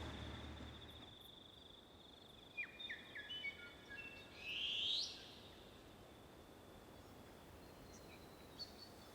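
A bird singing faintly: a quick run of short high whistled notes, ending about five seconds in with a louder rising note. A low rumble fades out in the first moments, and a steady high insect-like tone sounds faintly.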